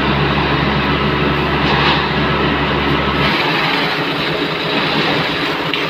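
Concrete mixer truck running: a loud, steady engine and drum noise. Its low hum drops away about halfway through while the rest of the machine noise carries on.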